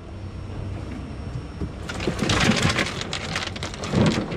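A bin of mingo (vermilion) snapper tipped out onto a fillet table: a rush of fish sliding and slapping out for a second or so, then a heavy thump near the end.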